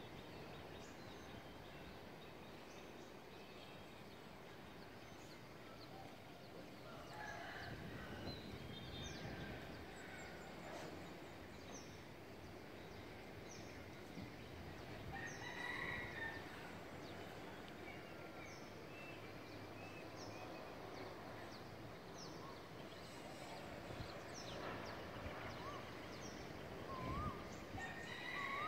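Birds calling from the surrounding trees over a steady background hum, with scattered short calls and a faint high chirp repeating about once a second through the middle.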